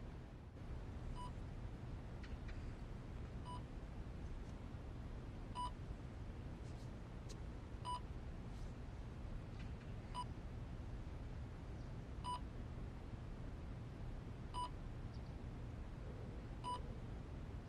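Hospital patient monitor beeping: short single beeps at an even pace, about one every two seconds, over a low steady hum.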